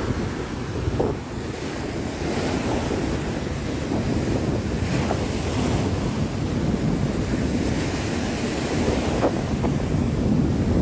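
Stormy sea surf breaking and washing over a pebble beach and against a concrete sea wall, a steady surging rush, with wind buffeting the microphone.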